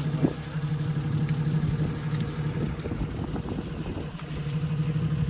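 Jeep engine running steadily, with faint light rattles over it.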